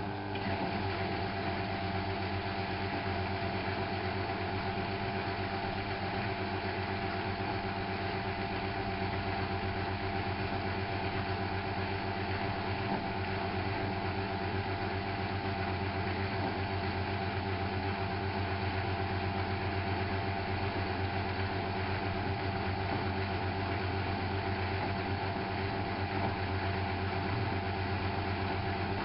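Miele Novotronic W830 front-loading washing machine running with a steady motor hum and whine, its tones shifting slightly right at the start and then holding even.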